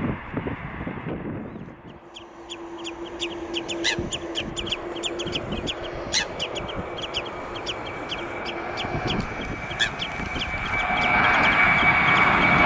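Airbus A320 jet engine noise dying away at the end of the landing roll. After a cut, many short high chirps sound over a faint hum. Near the end the climbing A320's engines swell louder, with a steady high whine over the roar.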